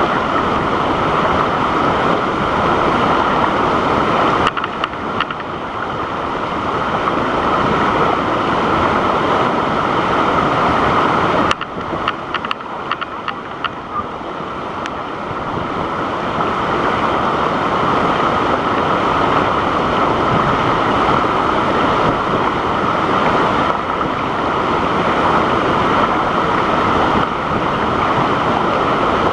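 Waterfall rushing: a loud, steady noise of falling water. It drops suddenly about four seconds in and again about eleven seconds in, with a few faint clicks after the second drop, then builds back up.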